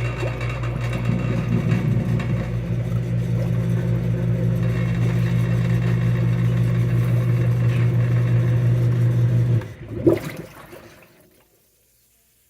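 Kitchen sink garbage disposal running with a steady motor hum, working against a clogged drain. It is switched off about nine and a half seconds in. A short knock follows, then the sound dies away.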